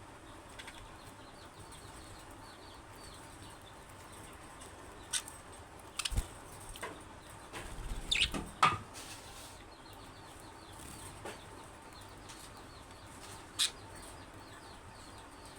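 Budgerigars chirping softly in a steady run of faint high chirps, with a few sharp louder sounds around the middle and once more near the end.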